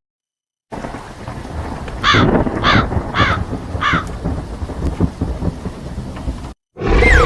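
Thunderstorm ambience: rain hiss with low rumbling thunder, starting after a brief silence. About two seconds in come four high, arching cawing calls, evenly spaced.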